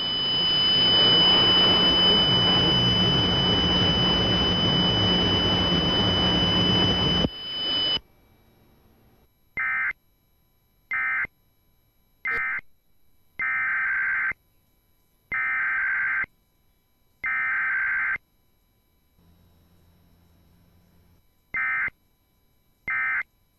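Loud radio static hiss with a steady high whine for about seven seconds, cutting off suddenly. Then come Emergency Alert System SAME digital data bursts, harsh screeching blips: three short bursts, three longer ones, and two more short ones near the end.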